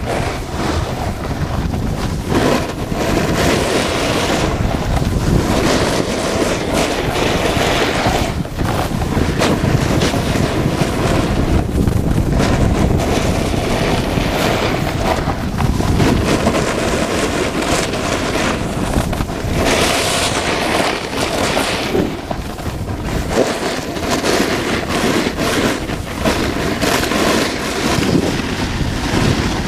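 Wind buffeting the GoPro microphone at speed, mixed with the rush and scrape of a Burton Custom Camber snowboard's edge on packed snow, rising and falling throughout.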